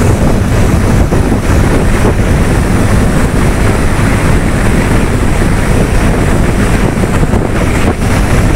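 Heavy wind rushing over the microphone of a motorcycle riding at highway speed, with the bike's engine and tyre noise running steadily underneath.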